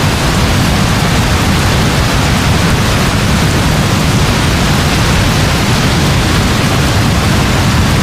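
Steady heavy rainfall, an even, unbroken wash of noise with a strong deep rumble underneath.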